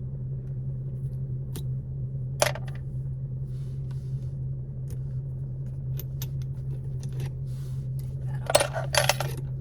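Small shift-knob parts being handled: scattered light clicks, a sharper click a couple of seconds in and a burst of clattering near the end, over a steady low hum.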